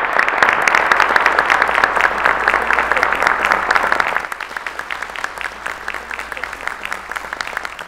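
Audience applauding with dense clapping. About four seconds in it drops off to lighter, thinner clapping.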